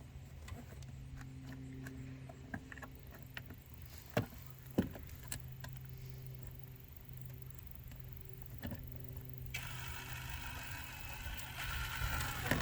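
A few sharp knocks and clicks from parts and tools being worked inside a truck door panel, over a steady low hum. From about ten seconds in, a rougher, hissing mechanical noise joins.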